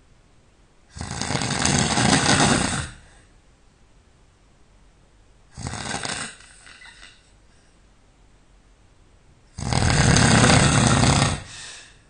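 A person snoring loudly: three snores a few seconds apart, the first and last about two seconds long, the middle one shorter and weaker.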